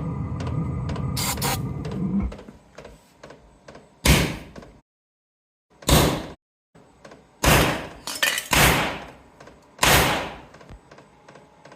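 Diesel parking heater's motor humming steadily, then cutting out after about two seconds. About seven sudden bangs follow, each dying away within a second, from starting fluid igniting in the heater.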